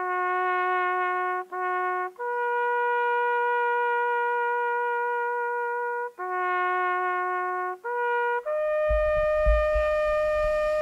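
Background music: a slow melody of long held notes on a brass-sounding instrument. A note and a short repeat are followed by a long higher note, the pattern comes round again, and then a still higher note is held. A low rumble comes in under the last note.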